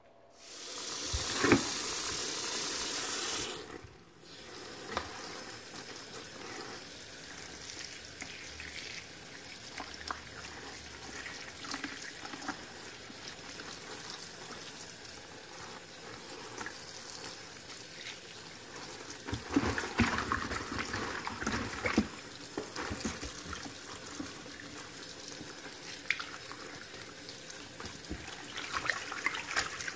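Kitchen tap running onto wild Swiss chard leaves in a bowl in the sink, with splashing and the rub and rustle of hands washing the leaves and stalks. It opens with a few seconds of a louder hiss that stops abruptly, and the handling splashes come louder about twenty seconds in.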